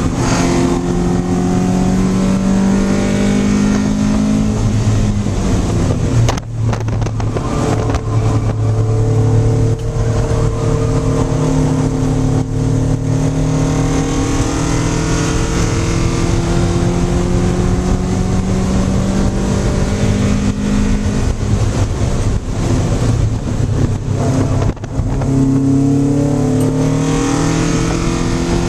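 Mazda Miata race car's naturally aspirated high-compression 2.0-litre four-cylinder with individual throttles, heard from inside the cabin, pulling hard on track with its pitch climbing through the revs. The sound breaks briefly twice, about six seconds in and near the end.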